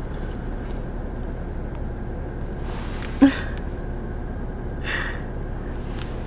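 Steady low rumble of a car cabin. A short, sharp sound comes about three seconds in, and a brief hiss about five seconds in.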